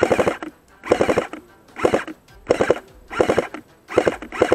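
Airsoft rifle firing about six short full-auto bursts, a little under a second apart, each a quick run of sharp shots.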